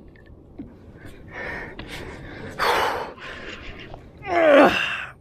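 A man breathing hard with exertion while landing a big tarpon by hand: a sharp breath just under halfway through, then a loud gasping exhale that falls in pitch near the end.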